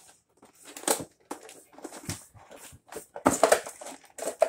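Plastic toy packaging being handled and pulled apart: irregular crinkling and crackling, loudest about three seconds in.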